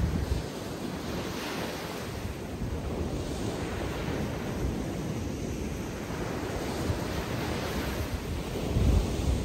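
Ocean surf washing onto a beach in steady swells, with wind buffeting the microphone in low rumbles near the start and again near the end.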